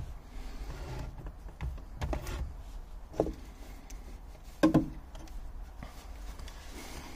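Handling noise from a jump starter and its clamps being moved about in a car's boot: light knocks and rustles, with two louder clunks about three and almost five seconds in.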